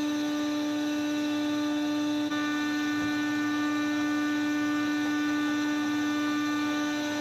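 Sawmill machinery running with a steady electric hum and whine at one unchanging pitch.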